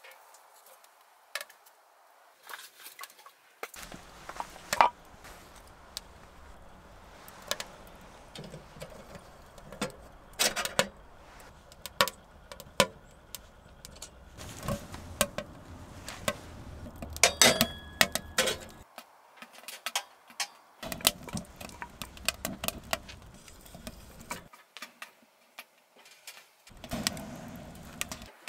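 Irregular clicks, knocks and metallic clinks from a tent-Mark Designs Wood Stove Side View M being tended: its metal door worked and split firewood loaded in, with snaps from the burning wood. A short run of ringing metallic clinks comes about two-thirds of the way through.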